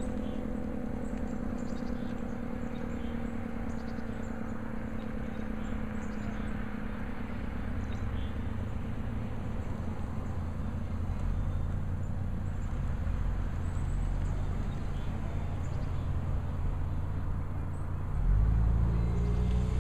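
Federal Signal SD-10 electromechanical siren winding down after its test, its tone sliding slowly lower and fading out over about the first ten seconds. A low rumble then builds and grows loudest near the end.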